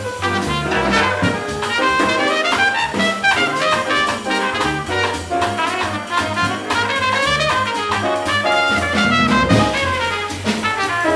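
Live jazz trumpet solo of quick rising and falling runs, over a swinging rhythm section of piano, upright bass stepping from note to note, and drum kit.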